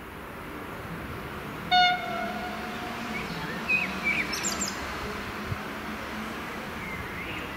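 Trenitalia E.464 electric locomotive giving one short, loud horn blast about two seconds in, the note fading away over a second or so, over the steady rumble of the approaching train. Birds chirp just after the horn.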